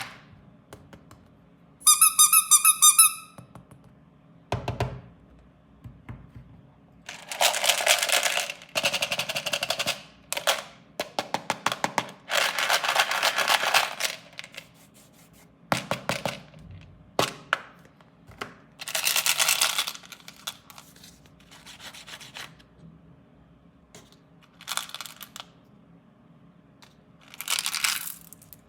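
Plastic candy and toy wrappers being crinkled and torn open in repeated loud bursts of crackling, with quieter pauses between. About two seconds in, a short high pitched pulsing electronic tone sounds for about a second.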